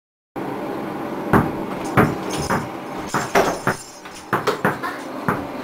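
A basketball being dribbled on a hard floor: a run of sharp bounces, roughly two a second, starting just over a second in.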